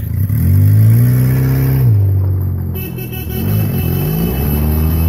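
Small car's engine revving up as it drives along the driveway, easing off about two seconds in, then picking up speed again.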